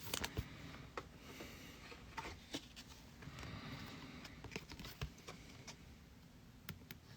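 Faint rustle and scattered light taps of trading cards being handled and set down.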